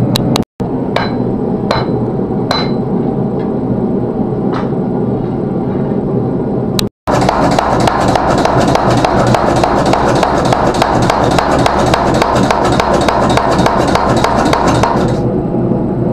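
Power hammer striking a glowing meteorite Damascus billet. First come a few separate blows with a ringing tone, then a fast, even run of blows at about six a second over a steady running noise.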